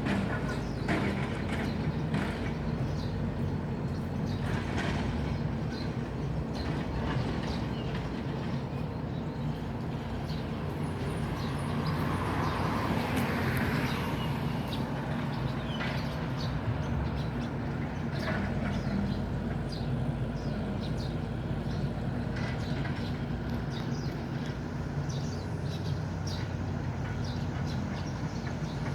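Engine running steadily with a low hum, with scattered clicks and knocks over it; a louder passing vehicle swells and fades about halfway through.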